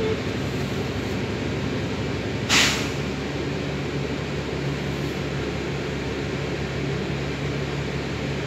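Alexander Dennis Enviro 400 bus heard from inside, its engine running with a steady low hum at idle or crawling speed. A short, loud hiss of air cuts in about two and a half seconds in.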